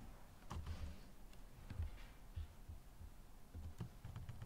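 A few faint, scattered computer keyboard key presses, short clicks with soft low thumps, a second or so apart.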